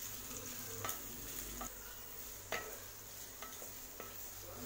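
Sliced onions with green chillies and curry leaves sizzling in hot oil in a metal kadai while a wooden spatula stirs them, scraping and knocking against the pan about once a second. The onions are in the early stage of sautéing.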